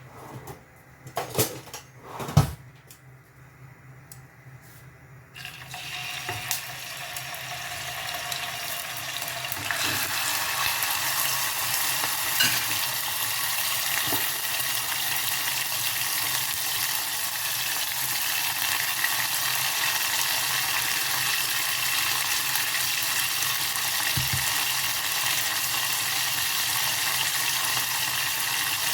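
A couple of sharp clatters of cookware, then food frying in a pan: a sizzle that starts about five seconds in, builds over the next few seconds and holds steady.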